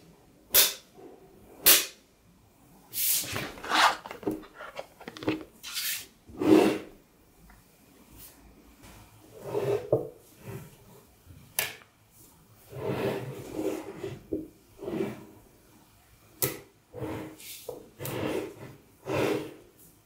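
Small neodymium magnetic balls clicking and clattering as hand-held slabs of them are snapped together and pressed into place: a few sharp snaps, then irregular bursts of rattling.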